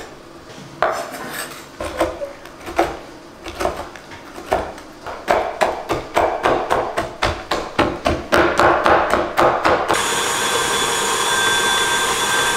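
Knife chopping chocolate bars on a wooden cutting board: scattered knocks at first, then rapid, steady chopping of about four or five strokes a second. About ten seconds in the chopping stops and a steady whirring hum takes over.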